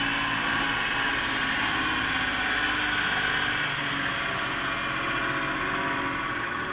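1994 Suzuki 4x4 mini-truck's small three-cylinder engine running steadily at idle.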